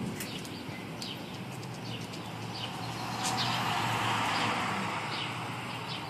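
Birds chirping in short high calls, while a pickup truck drives past on the street: its tyre and engine noise swells about three seconds in, then fades.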